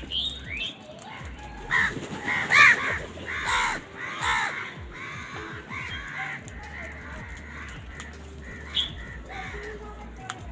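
Crows cawing: a quick run of harsh caws starting about two seconds in and loudest near its start, followed by a few fainter caws.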